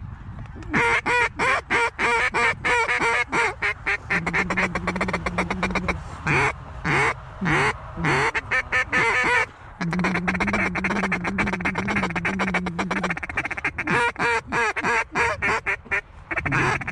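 Mallard duck calls blown by hunters to draw in ducks: strings of hen quacks and rapid feed-chatter. Twice a low held note runs for a few seconds, a few seconds in and again just after the middle.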